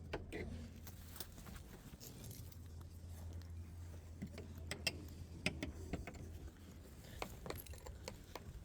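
Light taps on a hard object, a dozen or so irregular sharp clicks spaced unevenly, over a steady low hum.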